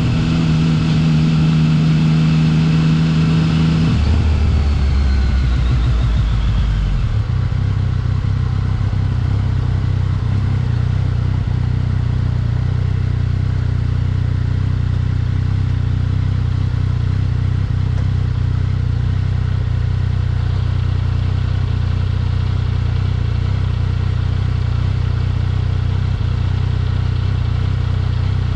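Yamaha XSR900 motorcycle's inline-three engine running; its note falls in pitch about four seconds in as the bike slows, then settles into a steady low note.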